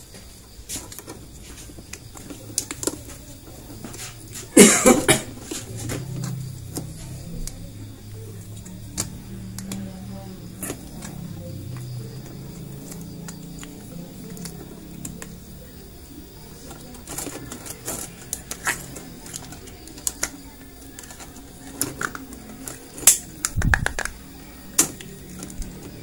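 Hands handling the plastic drain-valve plunger of a Sharp washing machine while taking off its worn rubber seal: scattered clicks and small knocks, with one louder half-second noise about five seconds in.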